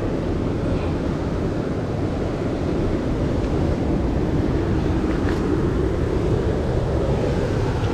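Wind buffeting the microphone over the steady rush of sea surf breaking on rocks.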